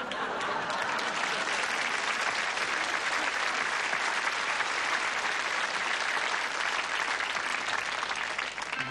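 Studio audience applauding: dense, steady clapping that swells in at the start and breaks off just before the end.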